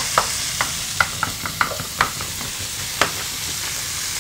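Minced pork and prawn sizzling in oil in a nonstick frying pan while a plastic slotted spatula stirs it, tapping and scraping against the pan a dozen or so times. The taps stop about three seconds in, leaving the steady sizzle.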